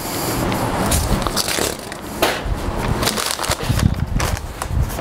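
Paper instruction booklet rustling and crinkling as it is unfolded and its pages are handled, with footsteps on the floor.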